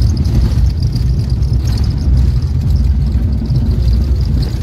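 Steady loud rumble of an airliner's engines and airflow heard from inside the passenger cabin, with a faint high whine above it.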